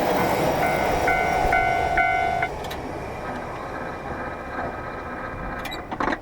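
A train passing over a Japanese level crossing, its wheels clattering on the rails, while the crossing's warning bell rings at about two strikes a second. About two and a half seconds in, the sound drops sharply to a fainter steady hum, with a few sharp clicks near the end.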